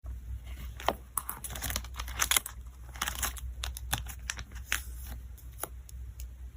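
Hands packing photocards: plastic sleeves and wrapping crinkling and rustling, with irregular sharp taps and clicks that come thick in the first few seconds and thin out after that.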